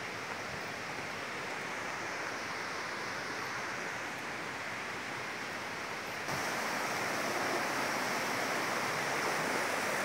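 Steady rush of a rocky mountain stream, which suddenly gets louder and brighter about six seconds in.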